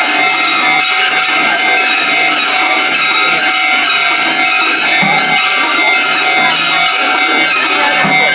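Japanese railway level-crossing warning bell ringing continuously.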